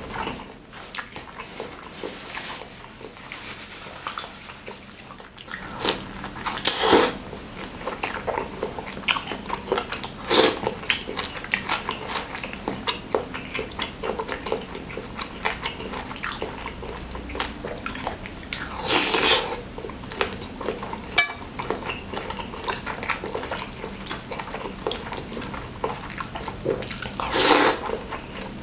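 Close-up eating sounds of a man eating spicy chicken noodles and meatballs: steady wet chewing and mouth smacks, with a few louder slurps of noodles, the biggest near the end.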